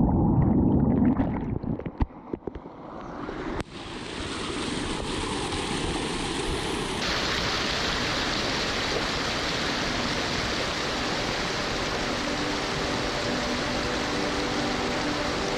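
Rushing water of a rocky mountain stream: a steady, even rush that swells in about four seconds in after a lower, uneven start. Faint music notes enter near the end.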